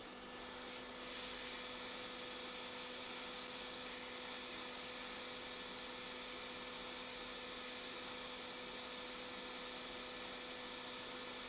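Steady electrical hum from the soldering bench equipment, with a faint high hiss that comes in about a second in and drops out near the end.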